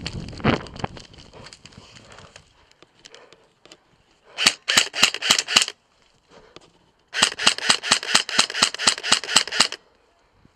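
Airsoft gun firing rapid strings of shots, about seven a second: a burst of about nine, a short pause, then a longer burst of about sixteen.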